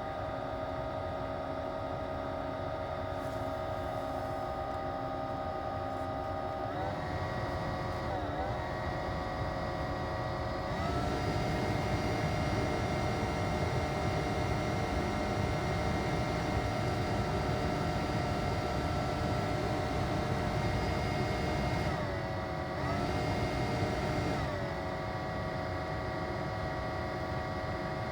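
Dashboard air-conditioning blower fan of a 2004 Daihatsu Move (L152S) running with a loud whine over a low rumble, its pitch stepping up twice as the fan speed is raised, then back down near the end. The whine is the abnormal blower noise the owner complains of.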